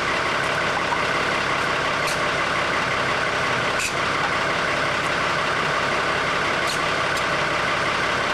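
An engine running steadily and evenly, with a few short faint ticks over it.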